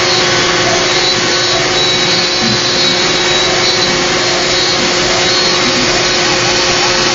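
CNC router (Joe's 4x4 Hybrid) carving wood: the router spindle runs with a steady whine while the bit cuts, over a steady hiss.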